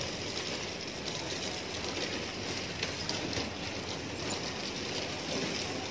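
Steady background noise of an open market hall, an even hiss with no distinct sound standing out.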